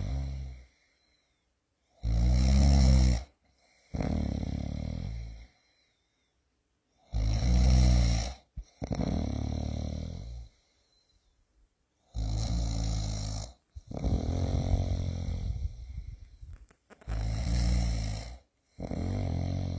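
A person snoring in slow, even breaths about five seconds apart. Each breath is a loud, low snore followed by a softer, breathier out-breath, with short silences between.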